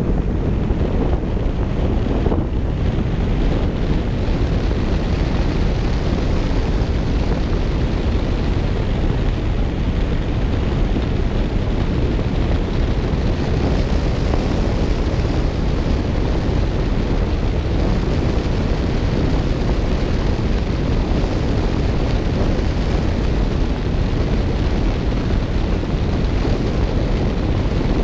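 Steady wind buffeting a hood-mounted microphone on a moving 2018 Ford Mustang GT, with the low rumble of its V8 and the tyres on the road underneath.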